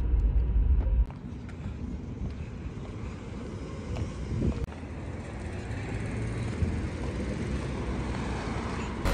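Background music cuts off about a second in, giving way to steady outdoor city noise with traffic.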